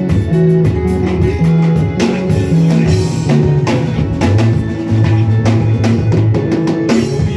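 Live church worship band playing a hymn: drum kit keeping a steady beat with bass and guitar.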